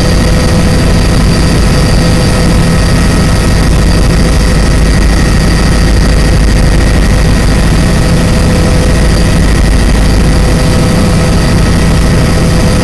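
Loud, steady engine noise heard inside the cabin of a sightseeing aircraft in flight, heavy in the lows, with several steady whining tones running through it.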